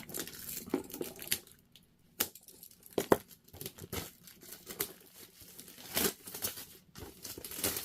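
Vinyl toy figure's packaging being torn open and crinkled by hand, with scattered short rustles and clicks.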